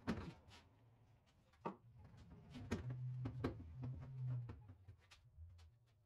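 Faint knocks, clicks and scrapes of a plastic trash can lid being handled and pressed onto the can, with a low rumble for a second or so around the middle.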